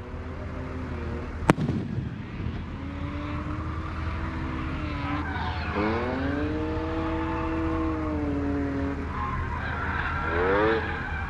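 One sharp firework bang about a second and a half in, then a motor vehicle engine revving, its pitch rising, holding and falling away, with another quick rising rev near the end.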